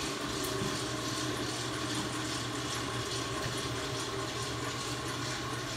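D&S Super 5000 car wash machine spraying water: a steady hiss of spray with a low, steady machinery hum beneath it.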